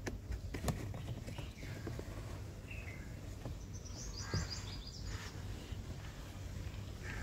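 Faint handling noise as the old cabin air filter is slid out of its plastic housing behind the glove box of a Kia Sportage: light rubbing and a few soft clicks over steady low background noise. Birds chirp briefly about four seconds in.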